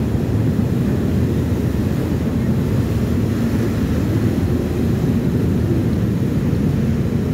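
A car ferry under way: a steady low rumble from its engines and propellers, with the wake churning behind the stern.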